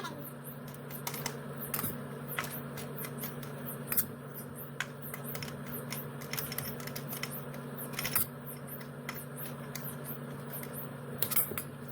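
Irregular light clicks and taps of kitchen utensils, knife and dishes at work on peaches, with a few sharper knocks, over a steady low hum.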